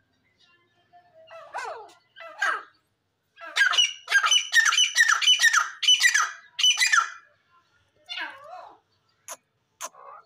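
Grey francolin calling: a few softer notes, then from about three and a half seconds in a loud run of harsh repeated notes, about three a second, lasting nearly four seconds. A few short sharp clicks near the end.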